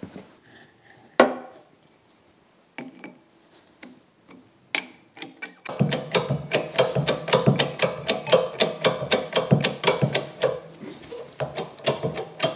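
A few separate wooden knocks, then a hydraulic toe jack being pumped by its handle to raise a forklift. From about six seconds in, the pumping gives a quick, even run of clicks, about five a second, over a low hum.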